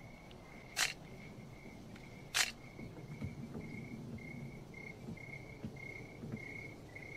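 Two shutter clicks of a Canon SLR camera, the first just under a second in and the second about a second and a half later, over a steady high chirping of insects.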